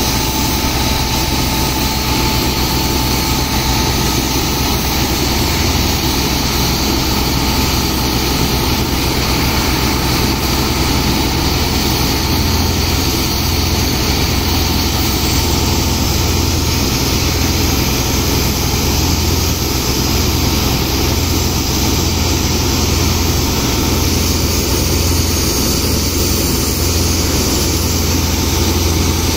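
Engine of a sand-pumping water pump running steadily, with high-pressure water jets spraying from hoses into wet sand.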